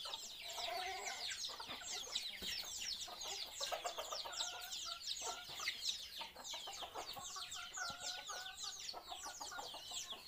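A flock of free-range chickens clucking as they feed, over a constant chorus of short, high, falling chirps.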